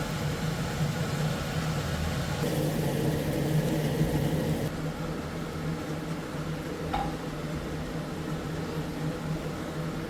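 A steady low mechanical hum, like a motor running, with a faint short click about seven seconds in.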